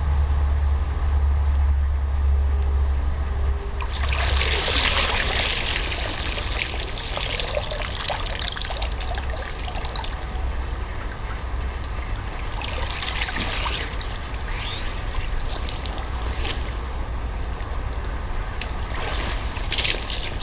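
Pool water splashing, sloshing and trickling as a person wades and stands up in a shallow inflatable pool, with water running off a soaked nylon tracksuit. The splashing sets in about four seconds in and comes back in bursts, after a low rumble at the start.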